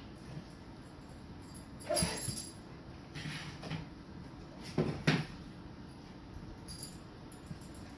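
Golden retriever licking peanut butter out of a plastic bowl on the floor, the bowl knocking against the floor now and then: loudest about two seconds in and twice around five seconds.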